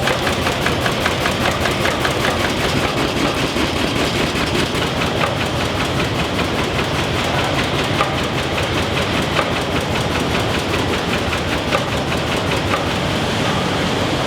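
Line-shaft-driven machine-shop machinery running: a steady mechanical clatter with a regular ticking, clearest in the first few seconds.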